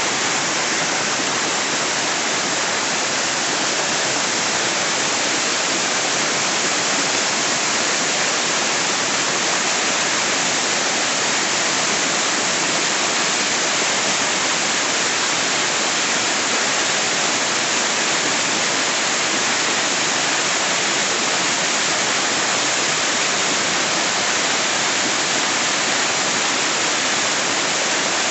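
Waterfall rushing close to the microphone: a loud, steady hiss of falling water that does not change.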